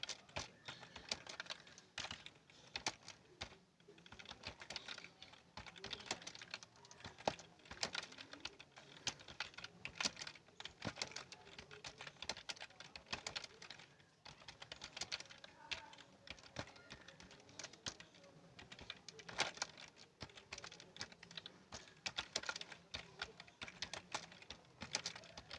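Typing on a computer keyboard: a continuous run of irregular key clicks, several a second, with brief pauses between bursts.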